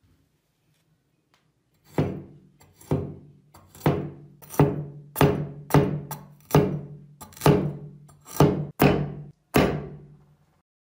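Restored antique cleaver chopping a carrot against a hard tabletop: about eleven sharp chops, starting about two seconds in, each strike ringing briefly.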